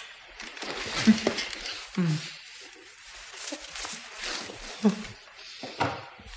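A man's short, muffled, wordless moans, several times, between heavy breaths.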